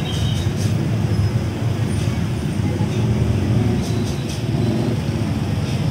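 Busy street traffic of small motor scooters passing close by, a steady low engine rumble.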